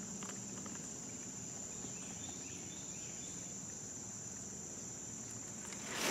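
Insects trilling steadily at one high pitch, with a brief rustle near the end.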